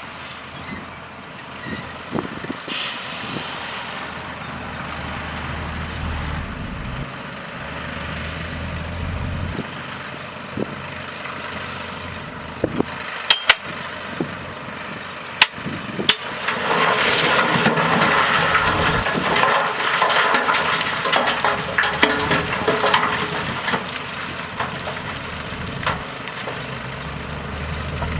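Heavy diesel earthmoving machinery running, with a few sharp metallic clanks around halfway through and a louder, rough rattling stretch in the latter part.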